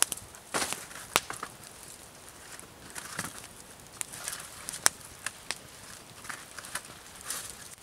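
Sheets of dry birch bark crackling and rustling as they are handled, with a few scattered sharp clicks.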